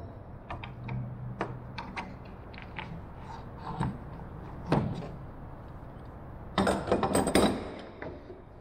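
Metal woodworking clamps being handled on a wooden aircraft frame: scattered clicks and knocks, a thud about five seconds in, then a burst of metal clattering as clamps are set down, the loudest part, about two-thirds of the way through.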